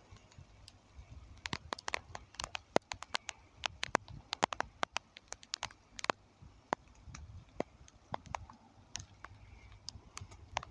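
Irregular sharp clicks and ticks close to the microphone, a few a second, over a faint low rumble.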